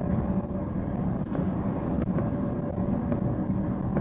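Cairo Metro train running at speed, heard from inside the carriage: a steady rumble of wheels on the rails with a thin steady whine and a few faint clicks.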